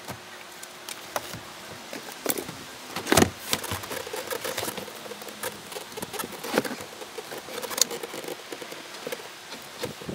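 Irregular clicks, taps and rustling of hands handling a test lead with an alligator clip inside a car, with a few sharper clicks standing out.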